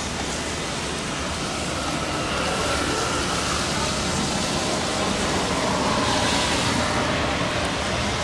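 Boeing 737-800's CFM56 jet engines at takeoff power during the takeoff roll, a steady rumbling roar that grows a little louder about two seconds in, mixed with the hiss of heavy rain.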